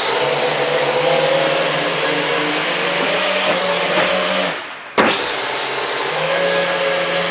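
Toy quadcopter's electric motors and propellers whirring steadily in flight. About four and a half seconds in, the whir dies away; a sharp knock follows, and the motors spin up again.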